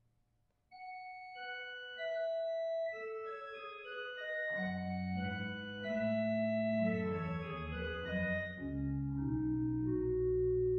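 Pipe organ music starting about a second in, with held chords in the middle and upper range, then deep bass notes coming in about four and a half seconds in and the music growing fuller and louder.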